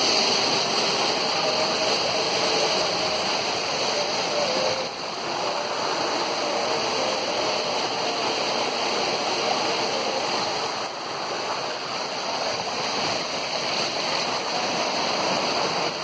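Steady rush of a waterfall, water falling down a rock face and running among the boulders below it.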